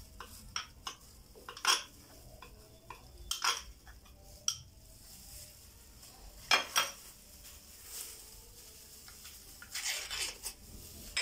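Metal spoon stirring a tahini mixture in a small glass bowl, clinking and scraping against the glass in irregular sharp clinks.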